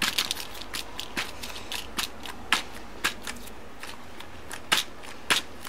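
Plastic keyboard keys clicking as a sticky cleaning gel is pressed down onto them and pulled off again: irregular sharp clicks, about two a second.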